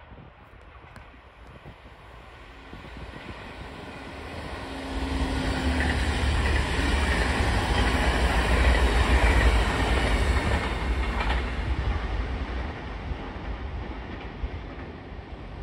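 Passenger train passing close by at speed: the rumble and wheel-on-rail noise build from about four seconds in, are loudest midway, then fade as the train draws away.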